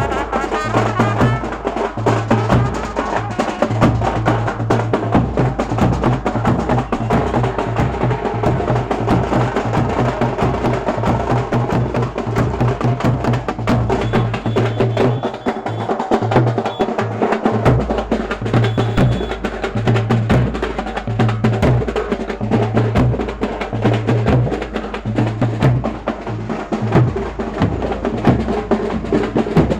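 Loud music with fast, dense drumming over a deep bass line that steps from note to note.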